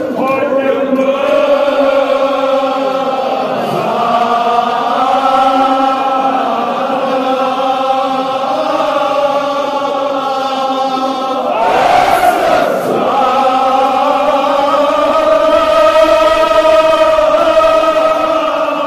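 A group of men chanting a Kashmiri marsiya in unison, drawing out long held notes. A brief burst of noise cuts across the chant about twelve seconds in.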